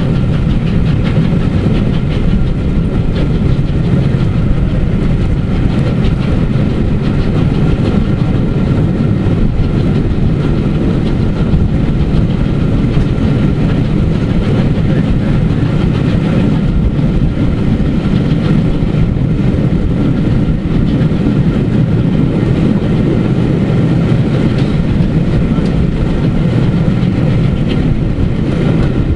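Steam-hauled train running steadily at speed, heard from a carriage window: a loud, even rumble of wheels on the rails.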